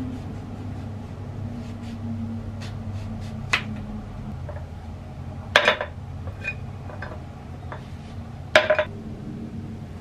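A small knife slicing a lemon on a wooden cutting board, then clinks and knocks of a tall glass and utensils. The loudest clinks come in two short clusters, about five and a half seconds in and again near nine seconds, over a steady low hum.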